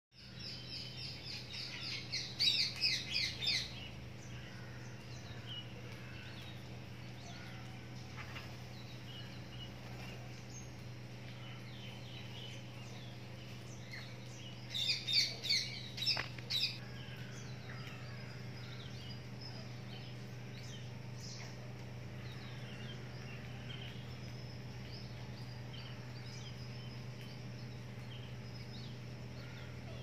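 Rose-ringed parakeets giving two bursts of loud, harsh, rapidly repeated calls, about two seconds in and again around fifteen seconds, with softer scattered chirps between. A steady low hum runs underneath.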